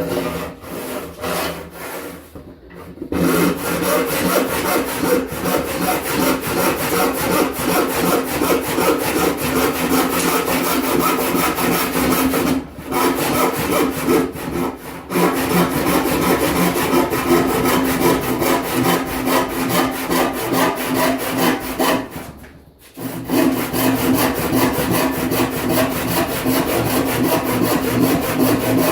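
Hand panel saw ripping a board lengthwise, with fast, steady push-and-pull strokes rasping through the wood. It starts with a few hesitant strokes, stops briefly about halfway, then pauses for about a second before the sawing resumes.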